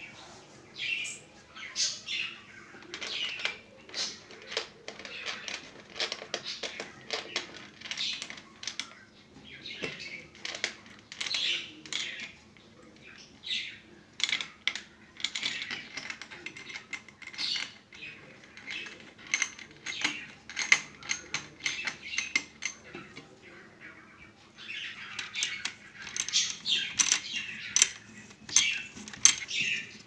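Birds chirping again and again, mixed with many light metallic clicks and taps from a Peltier cooler's aluminium heat-sink bracket and screws being handled and pressed into place. The chirping and clicking grow busier near the end.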